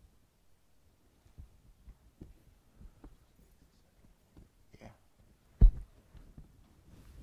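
Quiet room with scattered soft knocks and shuffles from people waiting in the pews, and one sharp, much louder thump about five and a half seconds in.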